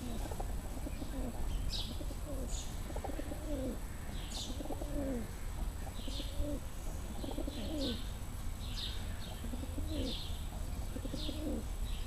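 Feral pigeon cooing over and over, one short low call about every second, in the rivalry display of two pigeons squaring off. Short high chirps repeat alongside.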